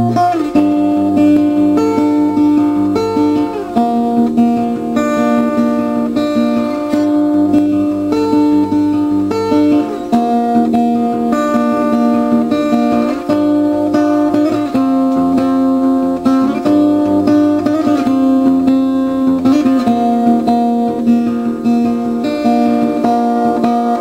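Intro music on acoustic guitar: slow, sustained chords that change every second or two, with a few sliding notes.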